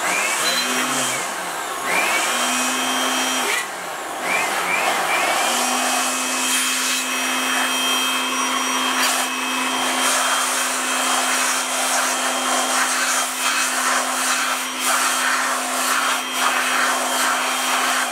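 Handheld electric air blower blowing dust out of an opened laser toner cartridge. It is switched on in short bursts a couple of times, each with a rising whine as the motor spins up, then runs steadily from about five seconds in.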